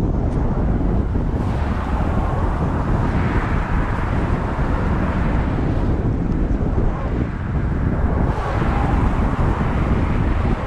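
Wind buffeting the microphone: a heavy, steady rumble with a hiss that swells twice, about a second and a half in and again near the end.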